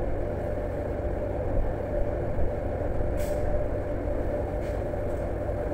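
Steady drone of a ship's machinery: a low rumble with a faint, even hum above it.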